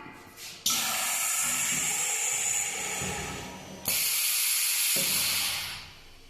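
Flatbread-making machine letting out two long bursts of hissing air or steam. Each burst starts suddenly; the first lasts about three seconds and the second about two, fading out near the end.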